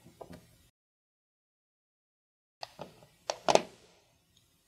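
Screwdriver clicking and knocking against the screw of a plastic outlet cover plate as it is unscrewed: a few light clicks, a stretch of dead silence, then a cluster of sharper knocks about three seconds in, the loudest two close together.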